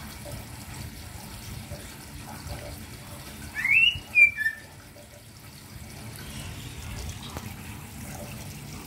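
Caged male green leafbird (cucak ijo) giving one short call about midway: a quick rising whistle held briefly, then a shorter, lower note, over a faint steady background hiss.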